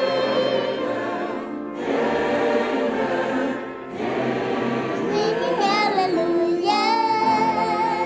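Choral music: voices singing sustained notes, with a single voice with strong vibrato standing out from about five seconds in.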